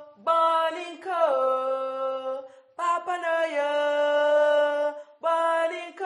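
A woman singing unaccompanied in a chant-like style: four long phrases of held, sustained notes, each opening with a short slide into the pitch.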